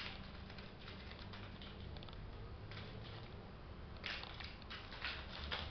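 A kitten's paws and claws scrabbling and tapping on a tiled floor as it bats a small toy about: irregular light scratchy clicks in clusters, busiest over the last couple of seconds.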